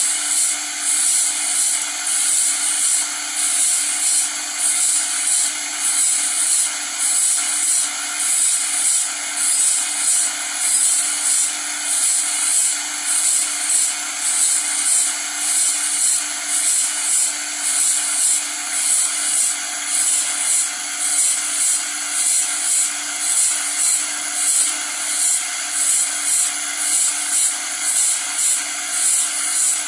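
Electric-motor-driven grinding wheel sharpening a band saw blade: a steady high grinding rasp that swells in a regular rhythm about once a second as the blade is fed past the wheel tooth by tooth, over a steady motor hum.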